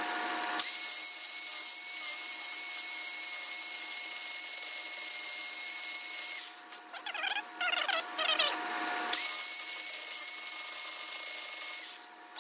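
DeWalt angle grinder starting up about half a second in and running free with a steady high whine, then grinding off the steel pin that holds the drive gear on an Allis-Chalmers distributor shaft for a couple of seconds, its sound wavering under load. It then runs free again and shuts off near the end.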